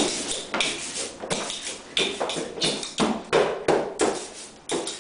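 A large cardboard sheet slapped by hand like a drum, a steady beat of sharp slaps about two a second.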